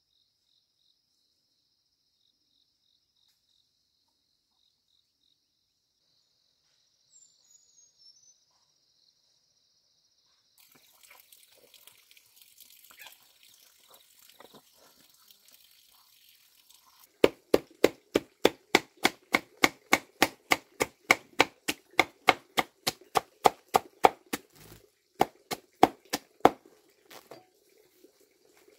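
Faint high insect drone with a short bird chirp, then a steady run of sharp chopping strikes, about two and a half a second, from a blade hacking into something on a hard surface.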